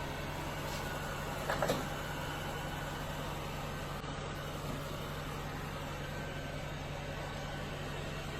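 Coredy R500+ robot vacuum running, a steady motor hum with whirring brushes and suction noise. A brief, louder pitched sound comes about one and a half seconds in.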